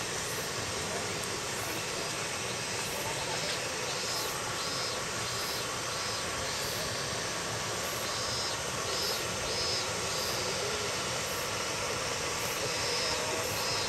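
Steady hiss of outdoor background noise, with short high chirps coming in small groups and fainter very high pulses repeating about every three-quarters of a second.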